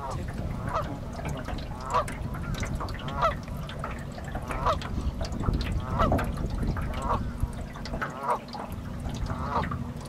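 Canada goose honking repeatedly, about a dozen loud honks at roughly one a second.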